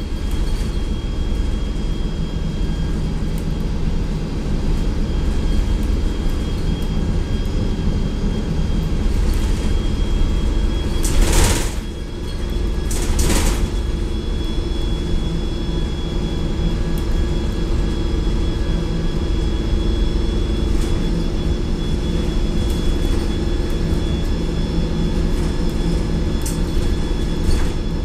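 2004 Gillig Advantage bus running, its Cummins ISL diesel and Voith automatic transmission giving a steady low rumble with a thin, high whine over it. Two short hisses about two seconds apart come about halfway through.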